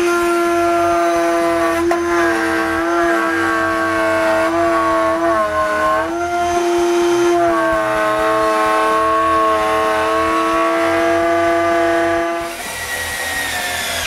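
Router spinning in a router table with a steady high-pitched tone while plywood is fed past the bit. Its pitch sags briefly under load a few times, and the loud running stops about twelve and a half seconds in.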